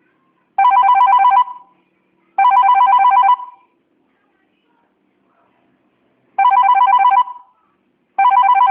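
Electronic telephone ringer sounding a warbling trill in a double-ring pattern: two short rings, a pause of about three seconds, then two more.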